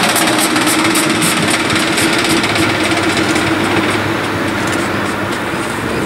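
NR class diesel-electric locomotive running light engine, its GE 7FDL-16 diesel engine humming steadily as it draws away, the sound slowly fading.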